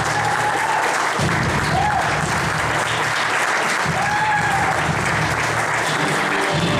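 An audience applauding steadily over the film's opening music on the theater's sound system.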